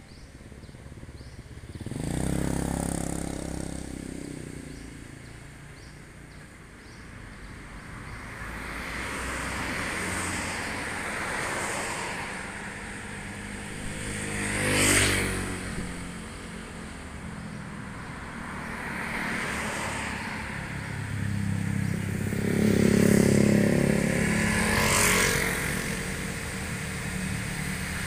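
Road traffic passing close by one vehicle after another, each swelling and fading. A motorcycle goes by sharply about halfway through, and a heavy truck's diesel engine is loudest a few seconds before the end.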